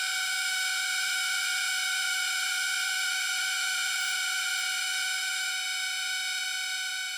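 A steady, high-pitched buzzing tone, held without change and fading slightly at the end.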